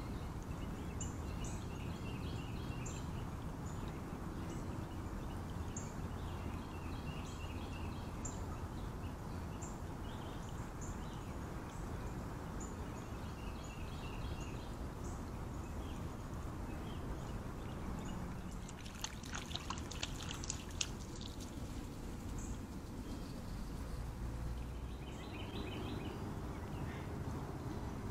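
Shallow creek water trickling steadily over a riffle, with small birds repeating short high chirps. About two-thirds of the way through comes a brief cluster of sharp clicks and splashes.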